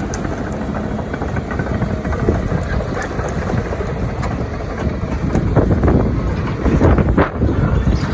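Wind buffeting the microphone in irregular gusts, growing stronger in the last few seconds.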